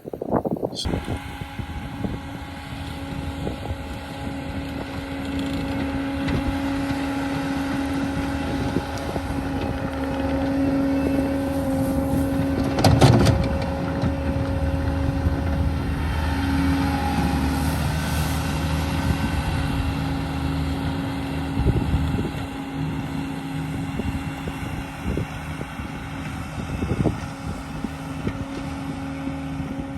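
An engine running steadily under load, with a sharp clank about 13 seconds in.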